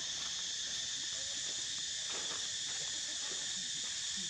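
Steady, high-pitched drone of an insect chorus, unbroken and even in level.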